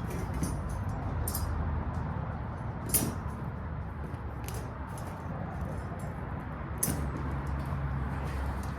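Metal parts and hand tools clinking and tapping while a seat is fitted, a few sharp clinks with the loudest about three seconds in, over a steady low hum.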